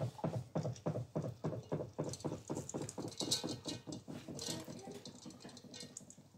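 Cooked basmati rice being tipped out of a metal pan into a pot, a fast run of soft taps and rattles, about six a second, as the pan is shaken and the rice lands, thinning out near the end.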